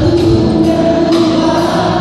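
Several women's voices singing a gospel worship song together, carried by a live band accompaniment with electric guitar.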